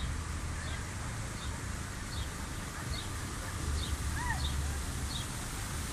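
A bird chirping repeatedly, one short high note about every three-quarters of a second. Another bird gives a brief arched call about four seconds in, over a steady low rumble.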